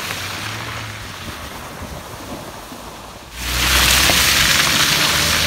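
Wind rushing over the microphone with a low rumble, jumping sharply louder a little past halfway through.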